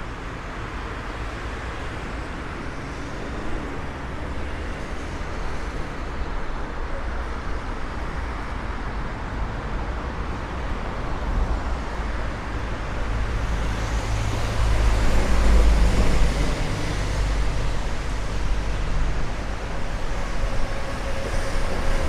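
Light road traffic on a city street: cars passing, the noise swelling about two-thirds of the way through, over a low rumble of wind on the microphone.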